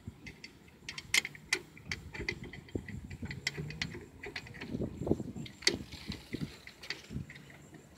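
Light metallic clicks and clinks, irregular and scattered, as brake caliper bolts are handled and threaded in by hand on a car's disc brake caliper.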